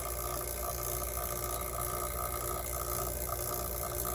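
Steady running of a small electric motor, most likely the vacuum pump evacuating the new line set before the refrigerant charge is released: a constant low hum with a few steady higher tones.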